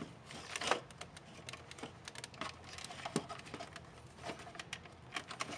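Hands handling a hard plastic flashlight housing: scattered light clicks and taps of plastic, with a couple of sharper knocks.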